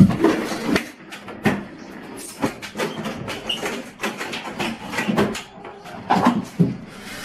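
A run of irregular sharp knocks and clicks, several a second, with a few heavier thuds among them.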